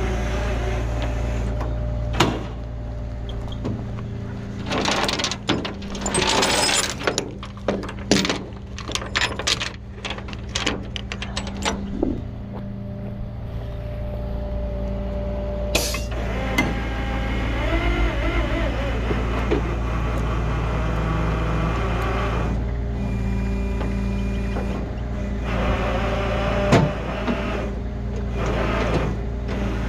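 Rollback tow truck's engine idling steadily. Over it come irregular rustling and clattering in the first half, with a sharp click a little past midway and more rustling near the end.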